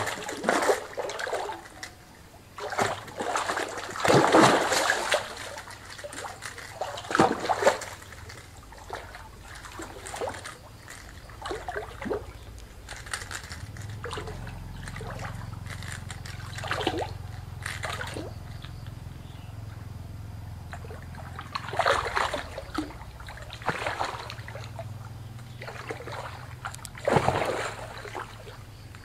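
Water splashing and sloshing in irregular bursts as a hooked fish thrashes at the surface and a person wades in shallow water, the loudest splashes about four seconds in and again near the end. A low steady hum comes in about halfway and fades out near the end.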